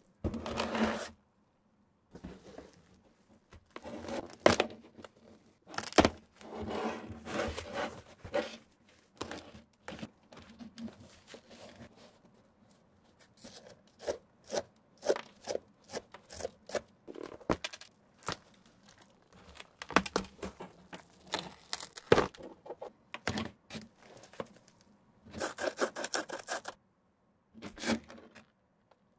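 The outsole of an old Nike Air Jordan 1 being peeled away from the upper: tearing and crackling of the crumbling, deteriorated midsole foam, in irregular bursts with short pauses and a few sharp snaps.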